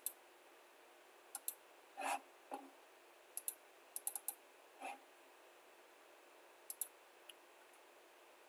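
Computer mouse clicks and a few keyboard keystrokes, sharp and sparse, some in quick pairs and a short run of taps about four seconds in, with a few duller soft knocks between them.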